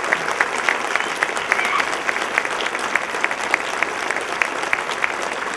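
Audience applauding, many hands clapping steadily with sharp individual claps standing out.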